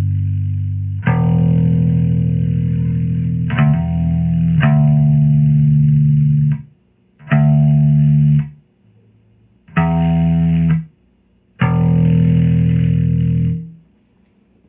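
Bass guitar played through a drive effect: distorted, held notes, each plucked and then cut off sharply, about six in all, with short silent gaps between the last few. The tone carries the odd drive noise the player is trying to show.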